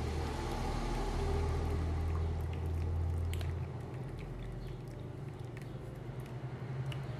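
Curdled milk poured from a metal pot into a plastic strainer over a bowl, the whey trickling through, with a few faint plastic clicks. A low rumble is loudest for the first three and a half seconds, then drops.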